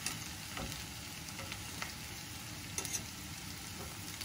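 Potatoes frying in oil in a skillet: a steady, even sizzle, with a couple of light clicks of a metal spatula against the pan.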